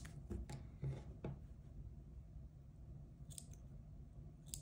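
Faint rustling of yarn being handled, then a few short, sharp clicks of small thread snips near the end as the working yarn is cut after the bind-off.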